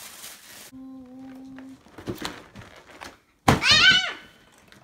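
Gift boxes and packaging being handled, with light rustles and knocks. About a second in there is a short, steady hummed note. About three and a half seconds in comes the loudest sound, a drawn-out 'ooh' of delight that rises and then falls in pitch.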